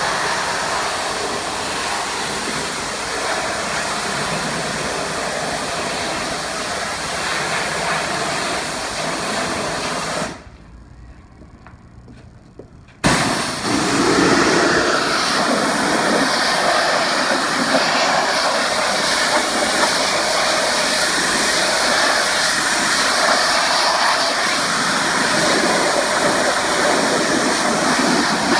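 Pressure washer spraying water onto a patio surface: a steady hiss of spray. It drops out for about three seconds near the middle, then comes back louder.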